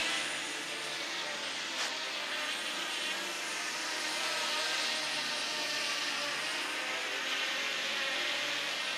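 Steady whirring drone of a DJI Mavic quadcopter's propellers while it flies, holding an even level with several faint overlapping tones.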